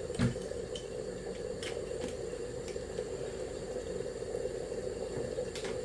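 Pot of dal (lentils) simmering on the stove, a steady bubbling with a few faint clicks.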